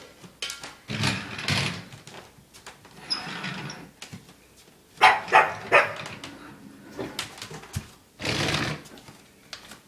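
Pug barking in short separate bursts, with three quick barks about halfway through.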